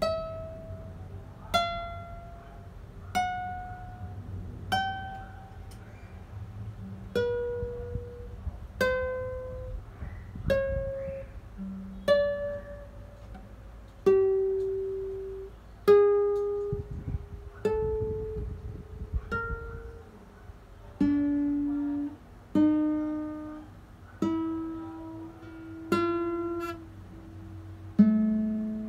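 1985 Ryoji Matsuoka M100 classical guitar, with a solid spruce top and Indian rosewood back and sides, played slowly: separate plucked nylon-string notes every second or two, each ringing out and fading, with fuller chords in the second half.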